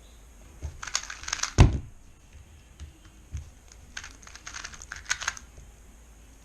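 A plastic 2x2 speedcube (MGC 2x2 V2) being turned very fast: two bursts of rapid clacking, each lasting about a second, one about a second in and one about four seconds in. A single loud thump ends the first burst.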